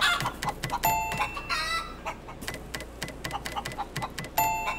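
A chicken clucking amid rapid, irregular tapping clicks, while a chime rings twice, about a second in and near the end.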